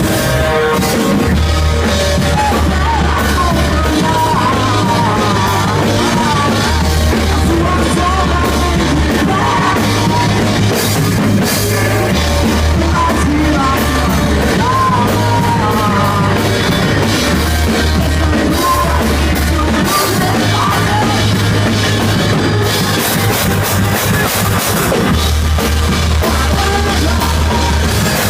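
Live rock band playing: sung vocals over drums and a bass line that moves between two low notes every couple of seconds.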